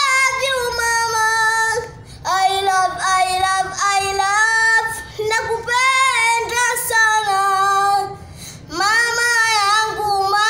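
A young boy singing solo and unaccompanied, holding long notes with a wavering pitch. He pauses for breath about two seconds in and again near the end.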